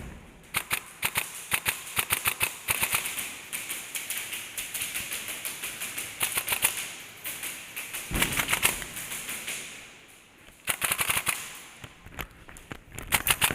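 Airsoft guns firing in rapid full-auto bursts: strings of quick, sharp clicks, several bursts separated by short pauses, with a brief lull near the middle and the loudest burst just after it.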